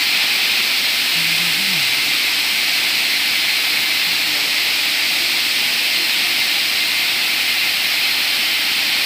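High velocity water spray system nozzles discharging over a power transformer after its deluge valve has been opened: a steady, even hiss of water spray.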